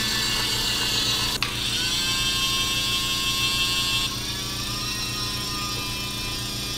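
Toy tower crane's electric winch motor whirring steadily as it lowers the grab claw on its cable. There is a click about one and a half seconds in, and the tone shifts slightly and gets a little quieter about four seconds in.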